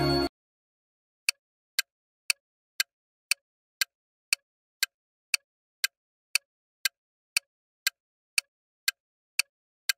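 Countdown-timer sound effect: sharp clock-like ticks, two a second, with dead silence between them. A jingly music cue cuts off just before the ticking starts.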